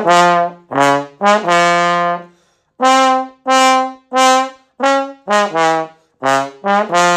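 Tenor trombone played loud with a bright, blaring tone: a string of about a dozen short, hard-attacked notes jumping between pitches, some in quick pairs. A longer sustained note starts near the end.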